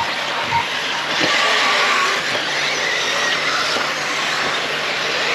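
Several brushless electric RC racing cars running together, with a high whine that glides up and down and the hiss of tyres on the dirt track. It swells for a second or so about a second in.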